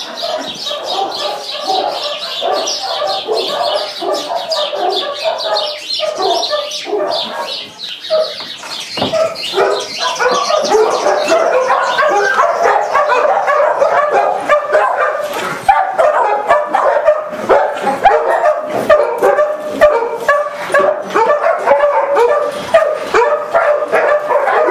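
Several dogs barking and yipping without a break, their calls overlapping. The calls are high-pitched at first and grow louder and lower from about ten seconds in.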